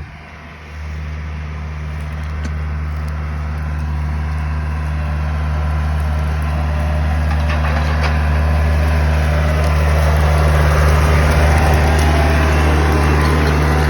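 Farm tractor pulling a disc harrow, its engine running steadily with a low hum that grows louder as it comes closer.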